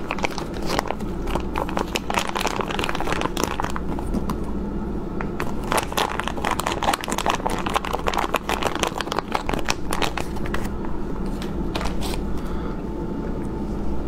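A clear plastic food packet crinkling and crackling continuously as it is squeezed and handled to tip wet pieces of pickled bamboo shoot out of it.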